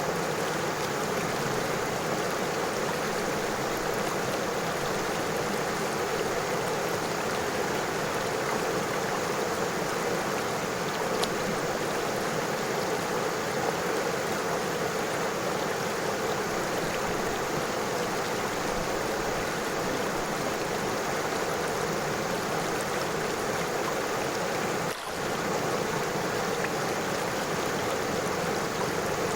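A river flowing: a steady, even rush of running water, with a momentary dip in the sound near the end.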